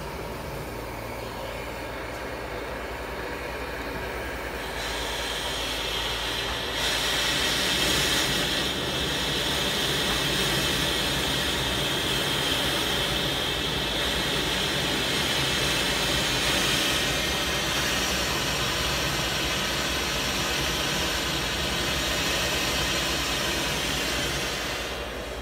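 Glassblowing bench torch burning with a large yellow flame, a steady roaring hiss. The hiss grows louder and brighter about five seconds in as the torch's gas valves are adjusted, and drops back right at the end as the flame is turned down.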